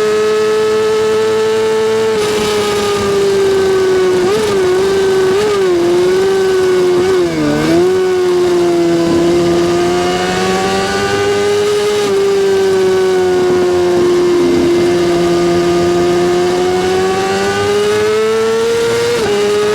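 Kawasaki ZX-6R's inline-four engine running at high, nearly constant revs, with a few quick wobbles and one brief dip in pitch between about four and eight seconds in, then a slow sag and rise.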